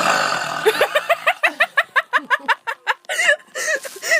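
A person gives a short, rough burp, then breaks into fast, repeated giggling laughter that grows higher-pitched near the end.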